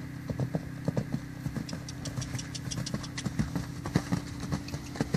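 Hoofbeats of a Clydesdale mare cantering under saddle on a soft dirt and grass track, strikes falling in uneven clusters in the rolling canter rhythm, loudest about four seconds in as she passes close. A steady low hum runs underneath.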